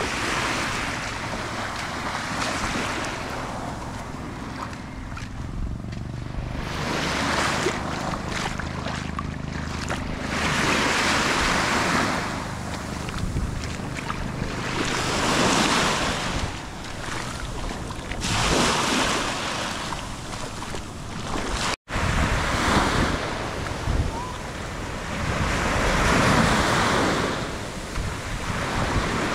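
Small waves washing onto a sandy shore, each swell rising and falling back every few seconds. The sound cuts out for an instant about two-thirds of the way through.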